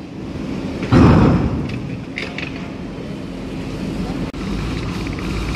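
Diesel truck engines running in and around a roll-on/roll-off ship's ramp, with one heavy thump about a second in; near the end the low engine rumble grows as the next truck begins to drive out of the ship.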